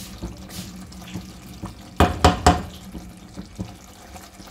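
Silicone spatula stirring potato slices through watery, simmering masala in an aluminium pot as the water is cooked off, with wet sloshing and bubbling. About two seconds in, three quick, ringing knocks of the spatula against the metal pot.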